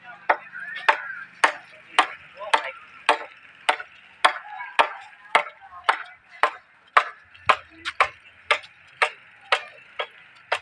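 Footsteps of someone walking, sharp even steps about two a second, over a steady high hiss.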